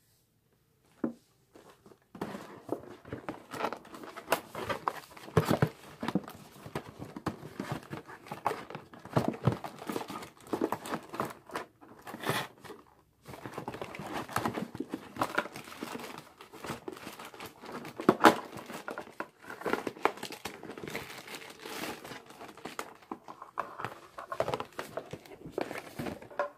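Crinkly plastic packaging of a new set of makeup brushes being handled, in a dense run of irregular crackles with a short break about midway.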